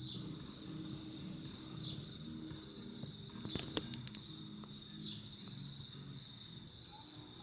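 Insects trilling steadily in one unbroken high tone, over a faint low hum, with a few sharp clicks a little past halfway.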